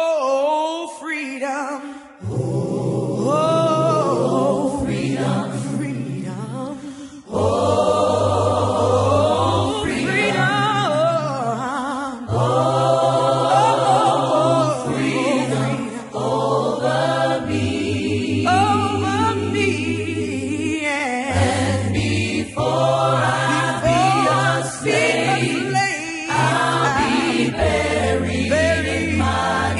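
Unaccompanied choir singing a slow gospel spiritual in harmony, with a low bass part under the sung phrases, which break off every few seconds.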